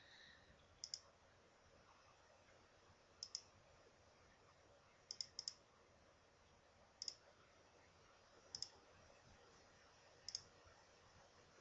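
Computer mouse clicking seven times over faint room tone, about one to two seconds apart, with two clicks in quick succession about five seconds in. Each click is a quick press and release.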